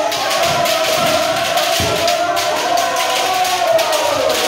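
A hall full of kendoka shouting kiai together in a continuous, overlapping chorus during kiri-kaeshi drills, with rapid sharp clacks of bamboo shinai striking and a few dull thuds of stamping feet.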